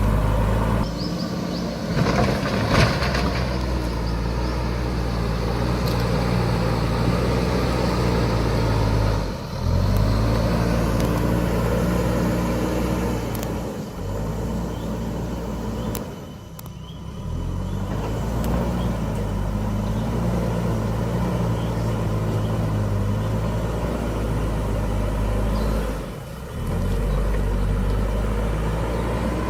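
JCB backhoe loader's diesel engine running and revving as it works, its pitch rising and falling several times, with a few abrupt short breaks.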